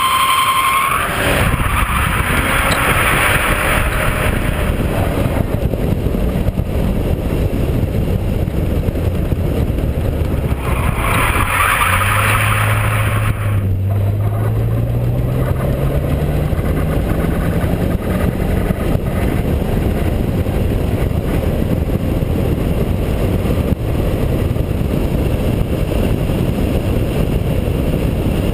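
BMW E36 328i's straight-six engine running hard on track, heard from outside the car over a steady rush of noise. The tyres squeal through two slides, one early and one about halfway through, and after the second the engine note climbs steadily as the car accelerates.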